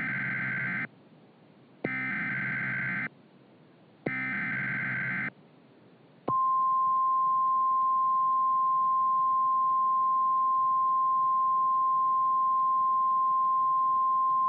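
Emergency Alert System SAME header: three identical bursts of warbling digital data, each about a second long with short gaps between them. About six seconds in, a steady single-pitch 1050 Hz NOAA Weather Radio warning alarm tone begins. Together they signal the start of a weather warning broadcast.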